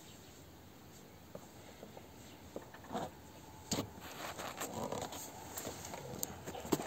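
Hand tools working on a fitting of the MTZ-52 tractor engine: scattered short metallic clicks and scrapes that get busier from about three seconds in.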